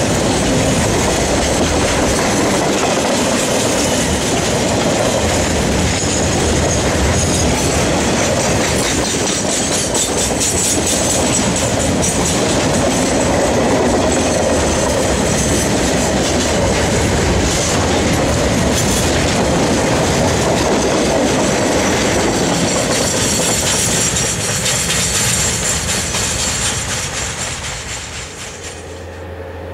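Container wagons of a freight train rolling past close by, wheels clattering steadily over the rail joints with a high thin wheel squeal at times. The sound fades away near the end.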